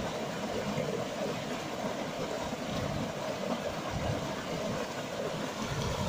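Mountain stream rushing over boulders and splashing down a small cascade into a pool, a steady, even rush of water.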